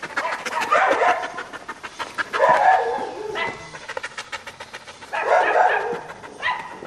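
Nine-month-old Belgian Malinois barking: three drawn-out barks a couple of seconds apart, then a short one near the end.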